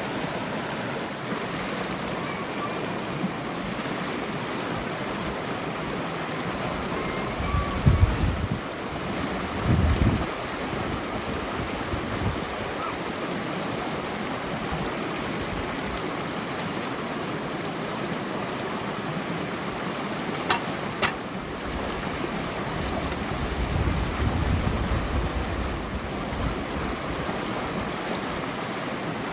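Steady rushing of a flowing river, with a few low rumbles of wind buffeting the microphone and two sharp clicks about two-thirds of the way through.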